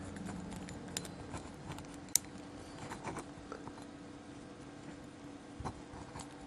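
Faint scattered clicks and ticks of a small screwdriver tip working at the locking tab inside a plastic zip tie's head, with one sharper click about two seconds in.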